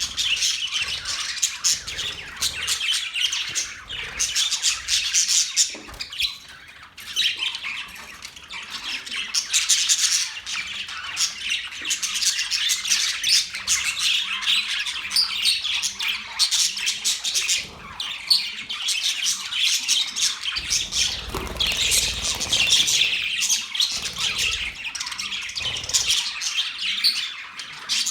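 Pet budgerigars chirping and chattering, a dense, continuous stream of high twittering calls.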